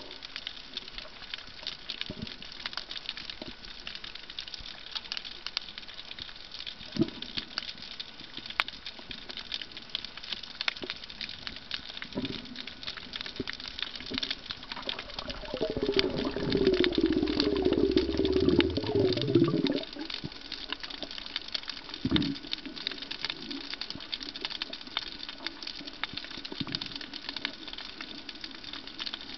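Underwater ambience picked up by a camera below the surface: a steady, dense crackle of fine clicks, with a few dull knocks. Past the middle comes a louder, low sound with a wavering tone that lasts about four seconds.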